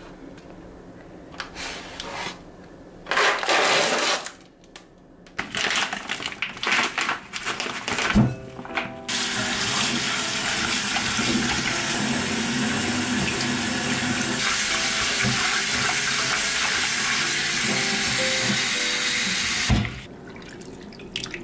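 Kitchen tap running steadily into a sink for about ten seconds, then shut off abruptly. Before it come a few short bursts of splashing and handling noise.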